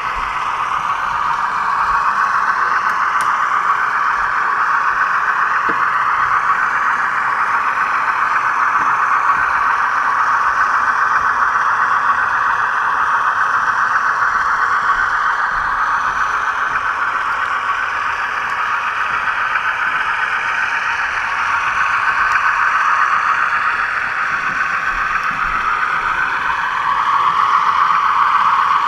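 HO-scale model train running along the layout: a steady whir of the small electric motor and gearing with wheel-on-rail rattle, the whine drifting slightly up and down in pitch as the speed varies, heard close up from a camera riding on the train.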